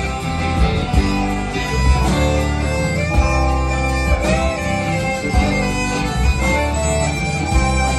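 Live country band playing an instrumental passage: fiddle carrying a sliding, sustained melody over acoustic and electric guitars, bass and drums.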